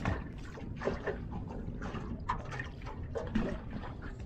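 Small waves lapping and slapping irregularly against a small boat's hull.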